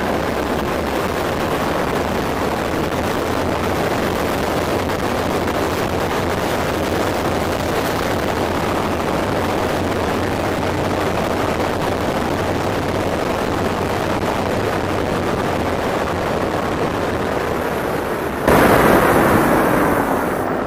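Wind rushing over the microphone, mixed with tyre and road noise, as an E-Mobo DuoTork electric kick scooter rides fast under power: a steady rushing noise with no distinct motor note. Near the end it suddenly gets louder for a couple of seconds.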